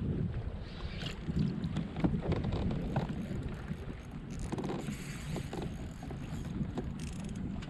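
Wind rumbling on the microphone aboard a kayak, with small waves lapping at the hull and a few faint ticks.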